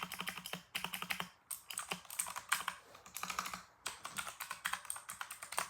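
Ducky One 2 Mini mechanical keyboard with clicky blue switches being typed on in quick runs of key clicks, with a brief pause a little past the middle: a first sound test of the new keyboard.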